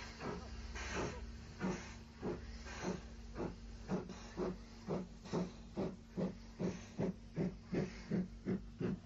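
Steam locomotive exhaust chuffing as the engine pulls away, the beats quickening steadily.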